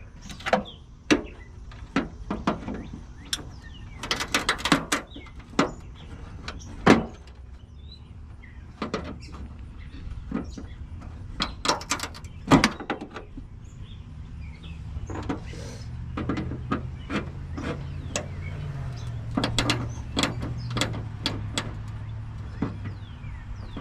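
Irregular sharp clicks and knocks of hand tools working at the hard plastic fasteners of a car's running-light housing. A low steady hum comes in about halfway through.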